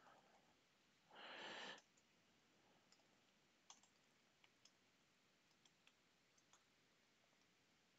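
Near silence with faint, irregular clicks of a computer keyboard as an email address is typed in, and a brief soft hiss about a second in.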